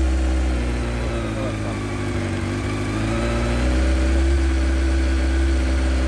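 Honda CBR600F4 inline-four engine idling just after being started. Its speed sags a little about a second in and picks up again near the middle, then runs steadily without an obvious stumble.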